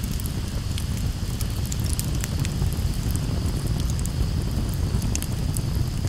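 Campfire burning, crackling with many scattered sharp pops over a steady low rumble.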